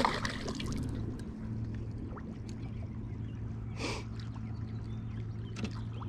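Boat motor humming steadily, with a short splash of water about four seconds in and a few faint clicks.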